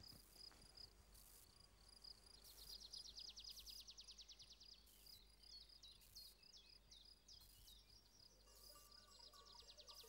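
Faint insects chirping: a steady high buzz with fast pulsed trills, twice, and a few short falling chirps in between. Faint music comes in near the end.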